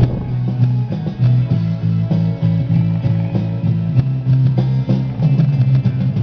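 Guitar music with a sustained low bass line moving between a few notes.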